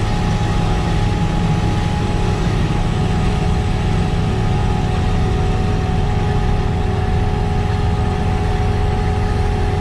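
Kleine SF10.2 self-propelled sugar beet harvester running steadily at work: a deep, even engine drone with a faint steady whine above it.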